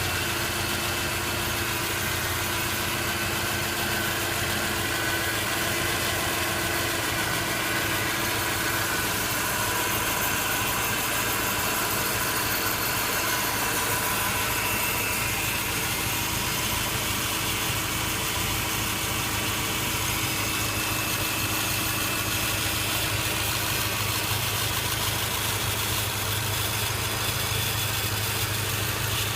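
A steady machine-like running sound, like an engine idling: an even low hum with a few faint held tones above it.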